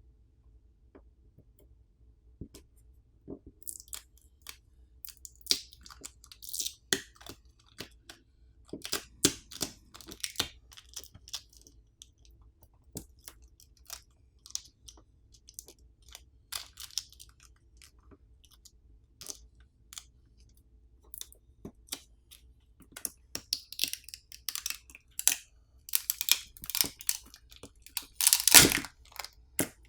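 Adhesive pull pouch being peeled back from under a smartphone battery: scattered crackling and tearing with small clicks and taps, growing busier and loudest near the end.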